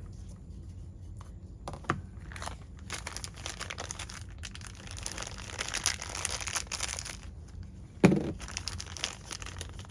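Crinkling, rustling handling noise, with a single knock about two seconds in and a short grunt-like vocal sound about eight seconds in.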